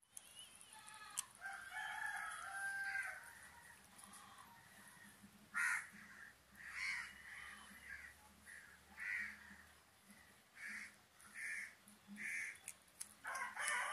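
Animal calls: one long pitched call of about two seconds near the start, a short sharp sound just before halfway, then a run of short calls repeated about every second through the second half.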